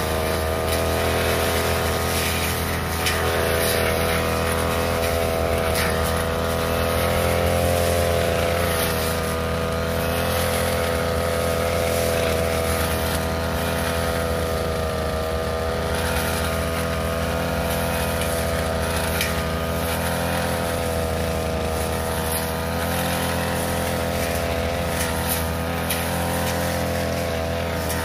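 Backpack brush cutter engine running steadily under load as its 45 cm blade cuts through waist-high cogon grass.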